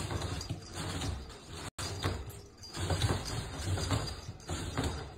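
Wire pet exercise pen rattling and knocking repeatedly as a husky jumps up and leans its weight against the metal panels, with dull thumps underneath.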